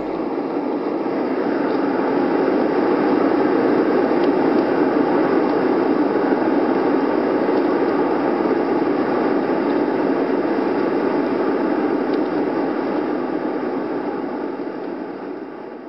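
Steady rushing noise with no clear pitch, swelling a little over the first few seconds and fading out near the end.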